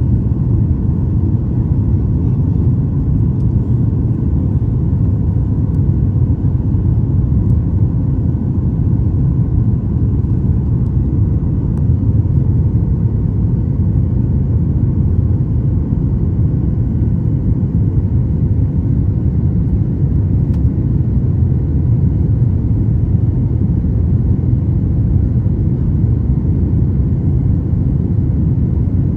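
Steady low rumble of a jet airliner cabin in flight: engine and airflow noise heard from a window seat over the wing, with a faint steady hum.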